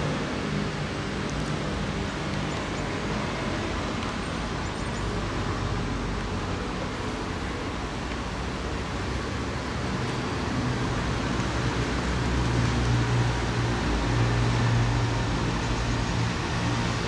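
Steady road traffic noise. A low engine hum grows louder in the second half.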